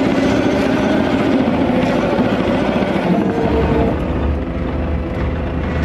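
Caterpillar 289D3 compact track loader's diesel engine running on throttle as the machine drives, heard from inside the cab; the engine pitch shifts and a deeper low rumble comes in about three and a half seconds in.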